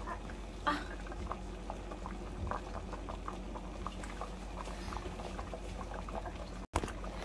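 Pork and lentil soup with spinach boiling hard in a large aluminium stockpot: steady bubbling with many small pops, one louder pop about a second in.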